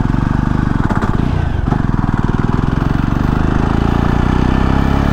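Jawa 42 motorcycle's single-cylinder engine running under way, the exhaust pulsing steadily. The note dips briefly about a second and a half in, then holds steady.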